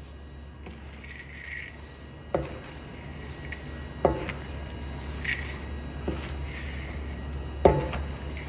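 Wooden spatula stirring chopped pistachios in a stainless steel bowl: a squishy scraping of the sticky nuts against the metal, broken by three sharp knocks of the spatula on the bowl, about two seconds in, about four seconds in and near the end, the last the loudest. A steady low hum runs underneath.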